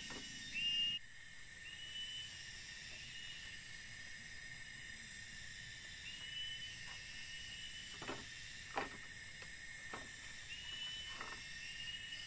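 Steady high insect drone of the tropical forest, with a short high call repeating every second or two. A few light knocks from the bamboo frame being handled, the sharpest about eight and nine seconds in.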